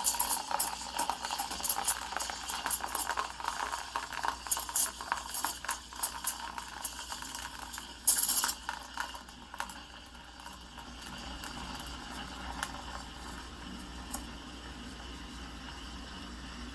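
Espresso machine steam wand bubbling and hissing in an iced espresso drink, with pieces of ice clicking and rattling against the container. A loud burst of hiss comes about eight seconds in, then the sound settles into a steadier, quieter hiss with the rattling gone.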